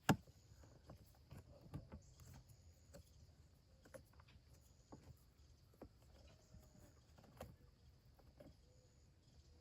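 One sharp knock, then scattered faint clicks and taps of a bolt and compost tumbler parts being handled and fitted by hand.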